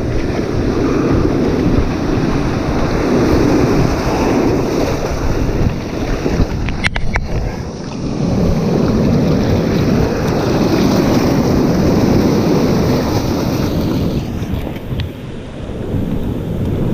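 Ocean surf washing and foaming around a wading angler, with wind buffeting the microphone, the noise swelling and easing. A sharp knock about seven seconds in.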